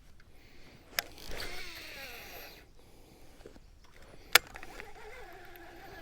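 A cast and retrieve on a baitcasting reel. A sharp click about a second in, then the spool whirring as line pays out. A second sharp click later on, then a steady, wavering whine of the reel being cranked.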